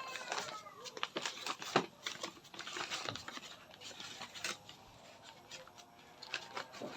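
Crinkling and rustling of plastic packaging and shopping bags as purchased items are handled, with scattered light clicks and taps.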